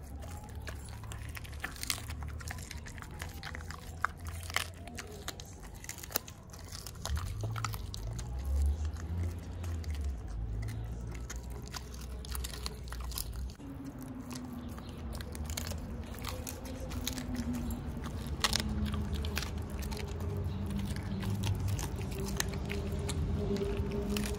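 Husky chewing chicken backs, the bones cracking in sharp, irregular crunches.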